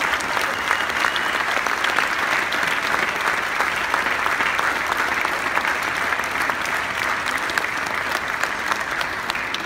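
Large audience applauding: many hands clapping together, steady and even.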